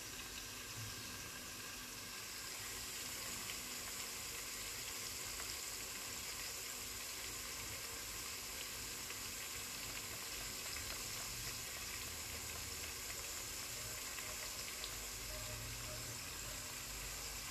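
Soffritto of spring onions, raisins and pine nuts frying gently in olive oil in a steel pot: a soft, steady sizzle.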